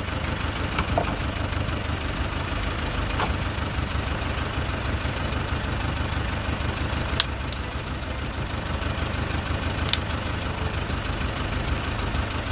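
Four-cylinder petrol engine idling with a misfire, running on only three cylinders. The dead cylinder is one the mechanic suspects has a damaged ignition coil or wiring. A few sharp clicks come from a screwdriver working a coil loose.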